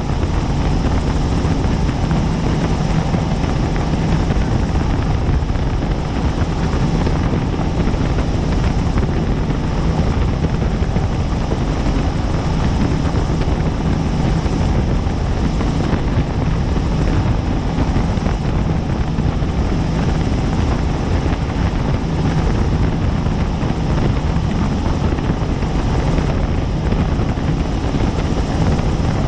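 Helicopter in steady cruise flight heard from on board: a loud, continuous rotor and turbine drone with a steady low hum.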